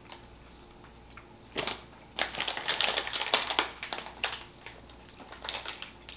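Plastic gummy-candy bag crinkling as it is handled, in a busy burst of rustling from about two seconds in until about four seconds, with a few lighter crinkles after.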